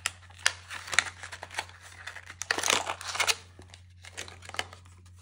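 Packaging being handled and torn open to unwrap a small metal figure: a run of clicks and crinkling, with a longer stretch of crinkling and tearing about halfway through.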